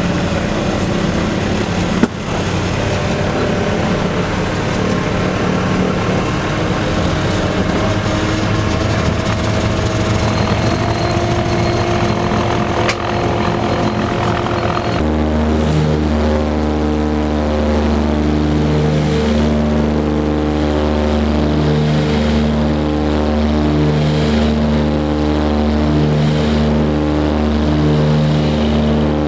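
Douglas DC-3's twin radial piston engines running, heard from inside the cabin as the aircraft rolls along the runway, with a sharp click about two seconds in. About halfway through the sound changes abruptly to a steadier engine drone with a slow, regular pulsing beat.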